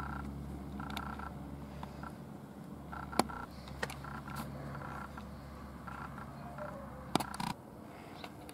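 Quiet outdoor background: a steady low rumble with faint short chirps and a few sharp clicks. The rumble drops away near the end.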